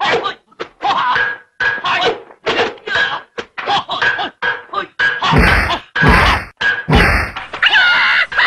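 Mock chopstick sword fight: a quick run of short whacks and thunks, two heavier thuds about five and a half and seven seconds in, and a drawn-out cry near the end.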